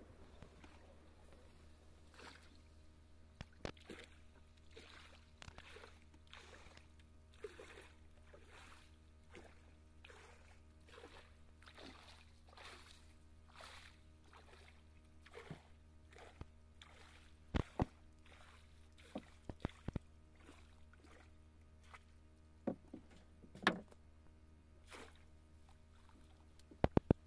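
Water sloshing and swishing in a steady rhythm, about one to two strokes a second, with a few sharp knocks and clicks, the loudest about two-thirds of the way through.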